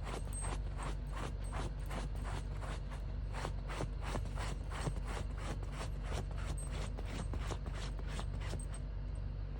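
Dachshund digging, its paws scratching rapidly and rhythmically at about four strokes a second, stopping shortly before the end.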